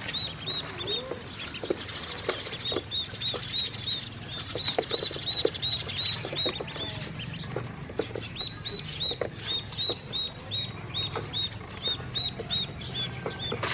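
Ducklings peeping: long runs of short, high, arched chirps, several a second, with a short break past the middle. Beneath them, light ticks and taps of bills pecking feed off the plastic floor of the tray.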